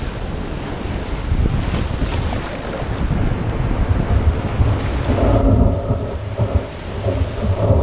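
Wind buffeting the camera microphone in a heavy low rumble, over surf washing in around the feet. About five seconds in the sound turns duller as the top end drops away.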